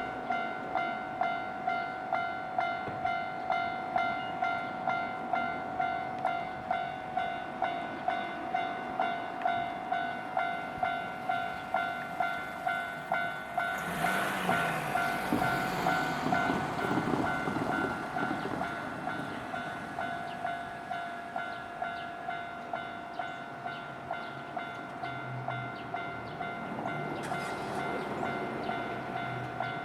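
Japanese railway level-crossing alarm ringing steadily in a quick rhythm of about two strokes a second. About 14 seconds in, a Nankai Koya Line train passes with a rush of wheel and motor noise lasting a few seconds. After that the alarm keeps ringing, a little softer.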